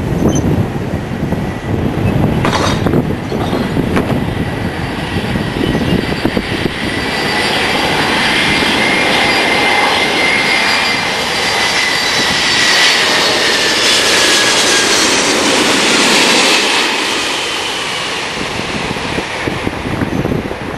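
Jet airliner on final approach passing low overhead: the engines' whine builds from about seven seconds in, dips slightly in pitch as it passes, and fades after about seventeen seconds. Wind buffets the microphone throughout.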